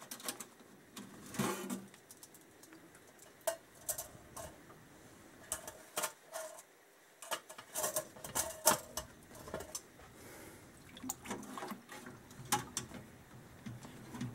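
Small metal carburettor parts clinking and clattering as they are handled in a stainless-steel ultrasonic cleaner's wire basket and tank, a scatter of light, separate clinks with short pauses between.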